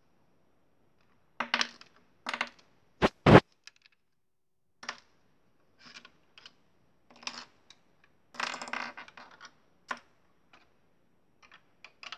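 Plastic Lego bricks clicking and clattering as they are handled, in scattered bursts. Two sharp knocks about three seconds in are the loudest, and a longer rattle comes about two-thirds of the way through.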